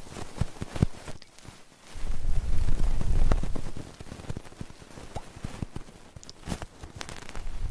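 Close-miked ASMR trigger sounds: a low rubbing rumble on the microphone, broken by crisp crackles and clicks.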